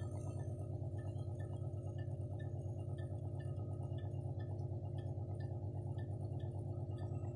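Motor of an Akai 200 humming steadily with a deep, even drone, and faint light ticks repeating about three to four times a second. The hum is the complaint being shown, a motor that hums when it should run quietly.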